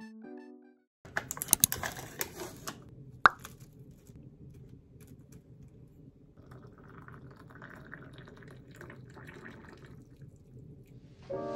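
Water poured in a thin stream from a gooseneck kettle into a ceramic mug, running for about four seconds in the second half. Before it there is a run of crinkly clicks and one sharp tap.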